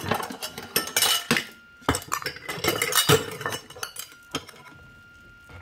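Metal spoon scraping and clinking as roasted kabocha squash is scooped from its skin into a metal measuring cup. The clatter of short knocks and scrapes dies down about four seconds in.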